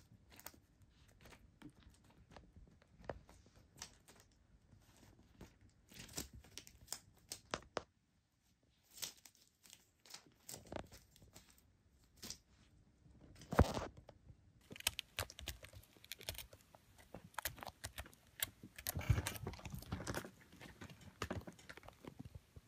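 Kitten playing with a wand toy on a blanket: scattered rustles, crinkles and small taps as it bites and bats at the toy's pom-pom and shiny film wings, with a few louder bursts of rustling.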